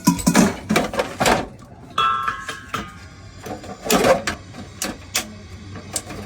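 Irregular sharp knocks and clicks, with a short steady tone about two seconds in.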